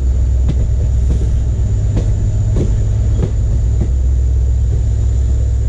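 Indian Railways passenger coach running, heard from its open doorway: a steady low rumble with repeated clicks as the wheels cross rail joints.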